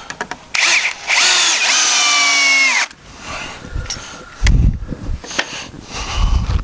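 Cordless drill driving a wood screw into Western Red Cedar: a short blip, then a steady whine for about two seconds that drops in pitch as the screw seats and the motor stops. Then two dull thumps, about a second and a half apart.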